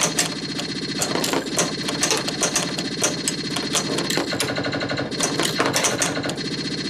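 1980 Williams Firepower pinball machine in play: a dense run of irregular clacks and knocks from its solenoids, bumpers and flippers over its steady electronic game tones.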